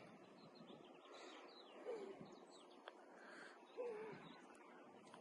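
Near silence with faint birds calling: quick high chirps and a few short wavering notes, over faint outdoor background noise.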